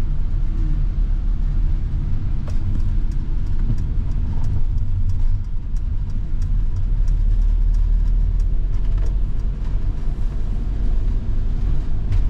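Vehicle driving on a wet road, heard from inside the cabin: a steady low engine and road rumble. A couple of seconds in, a run of regular light ticks starts and continues until near the end.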